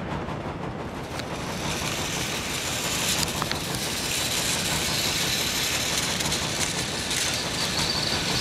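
Motorized Trackmaster toy trains running on plastic track: a steady motor whir with the wheels running over the track, getting louder and brighter about a second and a half in.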